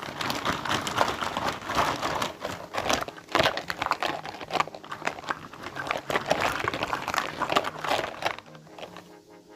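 Packaging crinkling and rustling as it is handled and opened, a dense run of small irregular crackles that quietens near the end.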